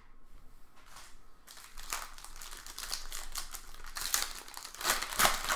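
Trading cards and their plastic packaging handled at close range: a run of crinkling and rapid small clicks, building after a second and a half and loudest about five seconds in.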